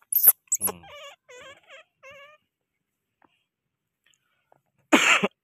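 A baby monkey giving four short, wavering squeaky calls about a second in. There is sharp crackling at the start, and a loud, brief noisy burst near the end.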